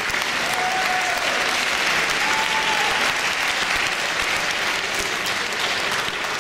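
Tournament spectators clapping steadily in a large hall, with two short held notes from the crowd rising over it about half a second and two seconds in.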